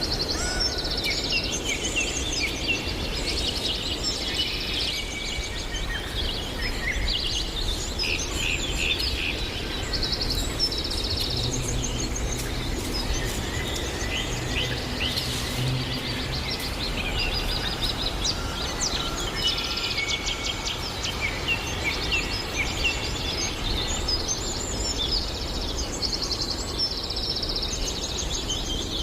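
Several songbirds singing at once, with overlapping chirps and trills throughout, over a steady low rumble of background noise.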